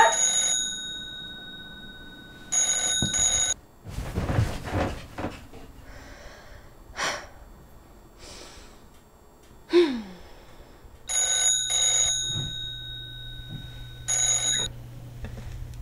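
Rotary-dial desk telephone ringing in separate bursts of about a second each, long gaps between some, the last ring cut short near the end. Between the rings there is a brief rustling noise and a short falling sound.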